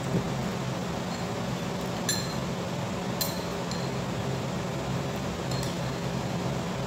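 Tableware clinking lightly on ceramic plates a few times, over a steady low hum.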